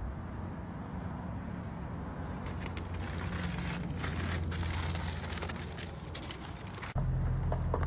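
Transfer tape being peeled slowly off a vinyl decal: a crackling rip starting about two and a half seconds in and lasting several seconds, over a steady low hum. Near the end the crackle stops abruptly and the hum becomes louder.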